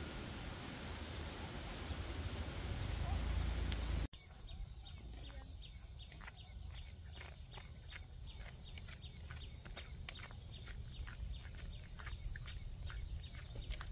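Insects chirring steadily in a rural outdoor setting over a low rumble. About four seconds in there is an abrupt cut to a quieter bed of steady insect chirring with a run of quick, light ticks or taps, several a second.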